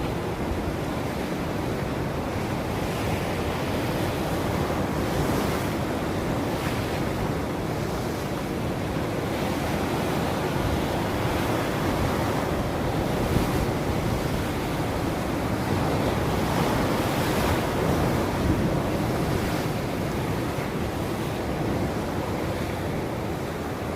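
Ocean surf: waves breaking and washing in, in a steady rush that swells and eases gently.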